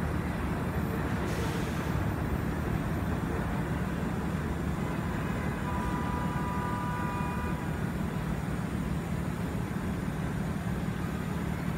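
Steady low rumble of elevated subway trains and city traffic. A short hiss comes about a second and a half in, and a faint high squeal lasts about a second and a half around six seconds in.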